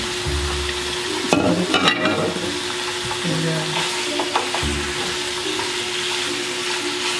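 Raw chicken pieces sizzling as they fry in oil with garlic and onion. A spatula stirs them, scraping and knocking against the frying pan, with a burst of clatter about a second and a half in.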